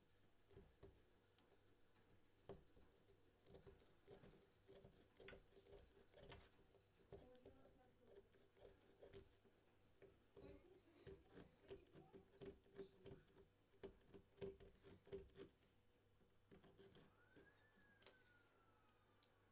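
Near silence with faint scattered clicks and light taps, the small handling noises of working on a phone.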